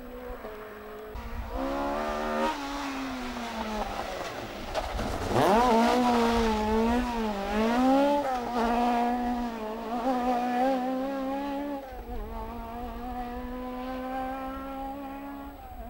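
Rally car engines at high revs on a tarmac stage. One car approaches and passes close by about five seconds in, its engine note climbing and dipping as the driver works the throttle and gears. Near the end another car's engine is heard coming closer, with a steadier note.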